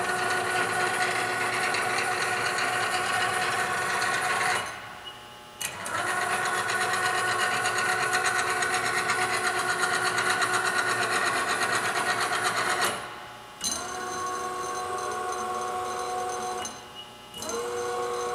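Bridgeport 2J Vari-Speed milling head's spindle drive running with a steady multi-tone mechanical whine. It cuts out briefly about five seconds in, then stops and restarts twice near the end. In the last seconds a thinner, steadier whine follows as the table jogs on its axis drive.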